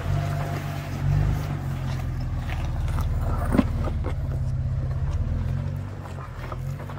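4x4 vehicle's engine running at low revs, with a few knocks and clicks; the sharpest knock comes about halfway through.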